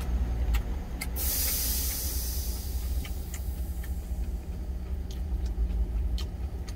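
Truck engine idling, a steady low rumble heard from inside the cab. About a second in, a sudden high hiss fades away over a second or so, and there are a few light clicks.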